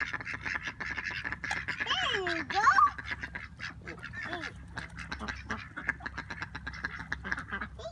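A flock of mallards and white domestic ducks quacking, a dense chatter of short calls, with a louder drawn-out sliding call about two seconds in.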